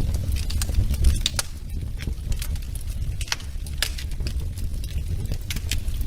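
Wood fire burning in a fireplace, crackling with irregular sharp pops over a low steady rumble.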